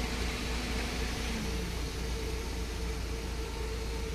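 Steady low rumble and hiss with a faint steady hum.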